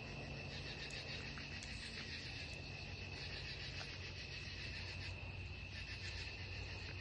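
Night-time insect chorus: a steady, high, pulsing trill of many insects such as crickets, with a faint low hum underneath.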